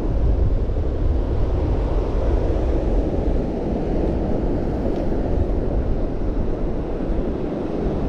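Strong wind blowing across the microphone over ocean surf: a steady, deep rushing noise with no breaks.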